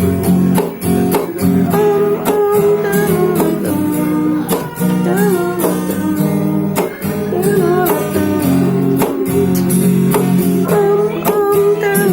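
Song accompaniment on acoustic guitar, strummed in a steady rhythm, with a melody line wavering above the chords.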